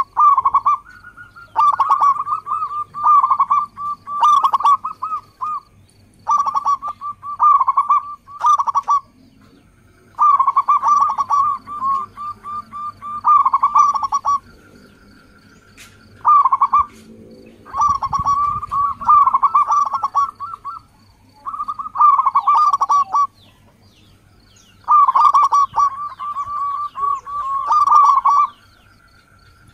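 Zebra dove (perkutut) song: a dozen or so rapid, trilling cooing phrases, each a second or two long, separated by short pauses.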